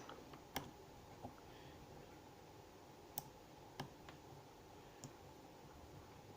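About five faint, irregularly spaced light clicks of a lock pick and tension tool working the pins of a seven-pin Mul-T-Lock dimple lock, over near silence.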